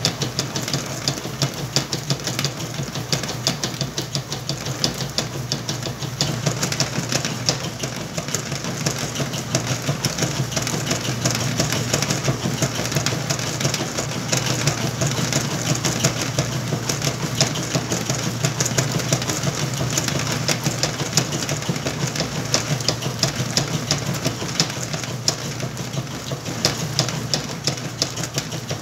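Whirlpool washing machine running with a load of towels: a steady motor hum under a dense, irregular patter of churning, splashing water.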